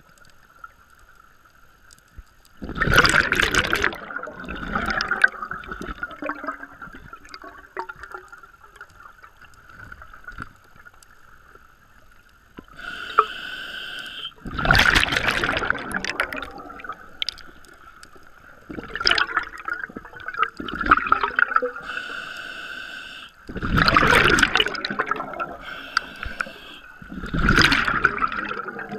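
Scuba diver breathing through a regulator: five loud rushing bursts of exhaled bubbles, with shorter hissing inhales between them, over a faint steady whine.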